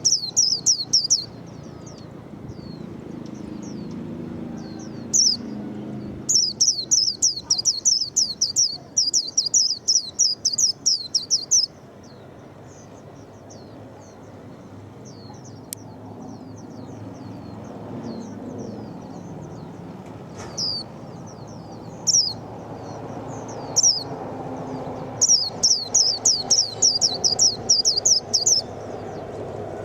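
White-eye singing: high, rapid runs of quick falling notes in two long bursts, a few seconds after the start and again near the end, with scattered single chirps between them. A steady low background rumble lies underneath.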